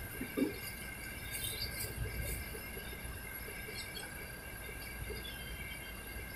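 Steady background hum with several high whining tones, over which a single thump sounds about half a second in, followed by a few faint light clicks.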